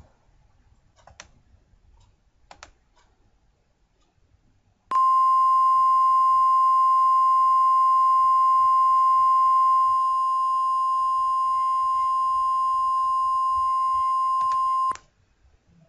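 Emergency alert attention tone: one steady, single-pitch beep held for about ten seconds, starting about five seconds in and cutting off sharply. A few faint clicks come before it.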